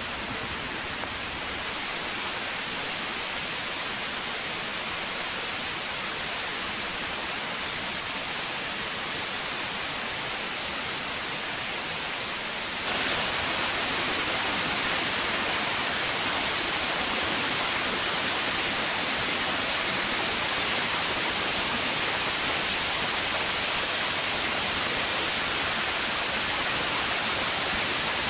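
Steady rushing hiss with no distinct events, stepping up louder about 13 seconds in.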